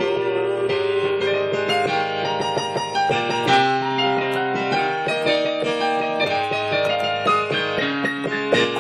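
Instrumental passage of a song led by a piano-toned keyboard, playing a string of melodic notes and chords without singing.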